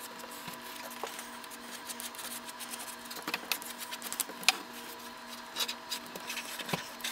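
Chalk scratching on linoleum as it is traced around the edge of a floor pattern: faint, uneven scratchy strokes with a few sharp ticks, over a steady low hum.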